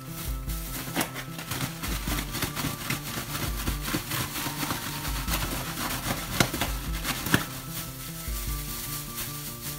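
A plastic bag rustling and crinkling as cut cucumber pieces are shaken inside it with salt, with a few sharper knocks among the rustling. Background music with a stepping bass line plays underneath.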